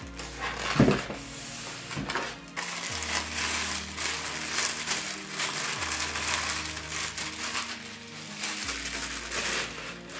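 Packing material being handled: crunching and crinkling rustle, with a sharp knock about a second in, over background music.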